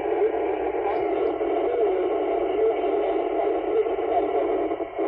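Two-way ham radio receiver playing a weak, noisy incoming transmission: steady heavy static over a faint, barely intelligible voice. The signal is too weak to copy the caller's call sign.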